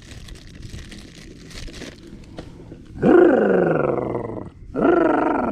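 Faint crinkling of a small plastic bag in the hands, then a man letting out two long, drawn-out shouts, each falling in pitch: a whoop of excitement over a big bass just caught.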